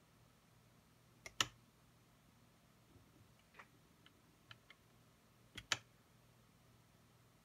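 Two sharp double clicks about four seconds apart, each advancing a slideshow to its next slide, with a few fainter ticks between them.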